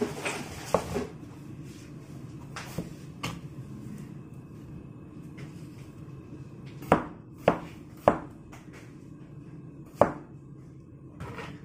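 Chinese cleaver chopping through melon and knocking down onto the cutting board in scattered single strokes, with three sharp knocks in quick succession about two-thirds of the way in and another soon after.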